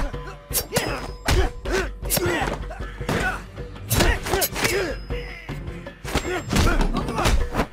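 Fight sound effects of a hand-to-hand brawl: punches and body blows landing in quick succession, about two a second, with short grunts of effort, over a film score.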